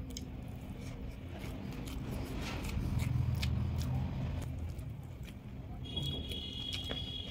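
Close-up eating sounds: crackly mouth clicks and chewing of rice and curry, over a low steady hum. About six seconds in, a high steady tone comes in and holds.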